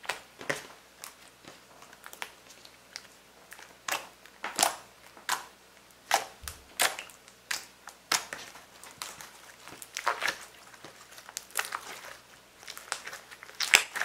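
Glossy slime being stretched, pressed with the fingertips and squeezed by hand, giving an irregular run of sticky clicks and pops, several a second.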